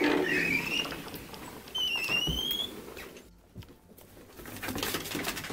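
Two short, high, rising squeaks, then rattling and scuffing as a sliding glass door is opened and a dog goes out through it.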